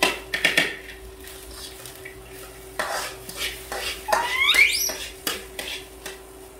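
Metal spatula scraping and clinking against a steel wok while stir-frying rice with diced vegetables, in uneven strokes, with a brief rising squeak about four seconds in.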